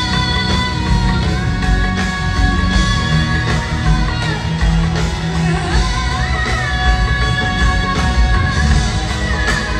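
Live band music through a concert PA: a woman singing a slow melody of long held notes with sliding ornaments, over electric guitar, percussion and heavy bass.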